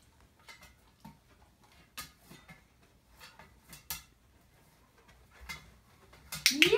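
Scattered light clicks and taps from a dog's paws and nails on an upturned metal pot as it shuffles around it, about a dozen scattered through, with a quick cluster near the end.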